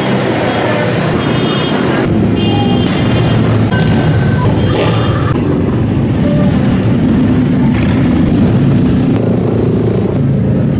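Motorcycle engines running and idling in a street, a continuous low drone whose pitch shifts a little partway through, with some voices in the background.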